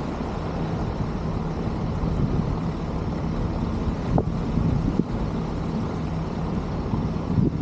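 A car driving slowly, heard from a camera mounted on its roof: a steady low rumble of engine and road noise, with a couple of small knocks.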